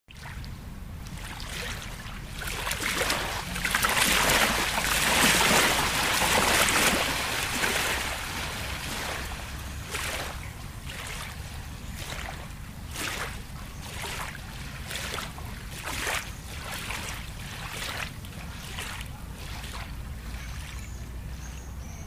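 Lake water lapping and splashing. A louder rush of water swells from about three to seven seconds in, then gives way to short irregular laps every half-second or so.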